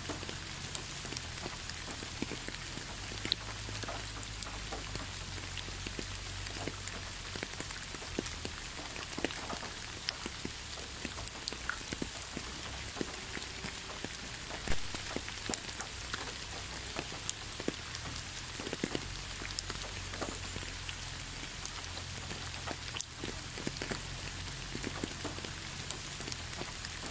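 Rain falling: a steady hiss with many scattered drip ticks, over a low hum.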